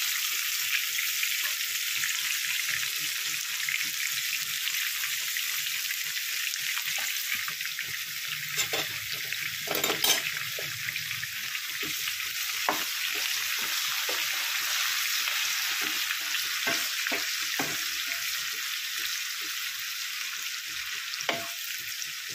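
Sliced onions deep-frying in a pan of hot oil, a steady sizzle, on their way to golden brown. A wooden spatula stirs them, knocking against the pan now and then, most of all about eight to ten seconds in.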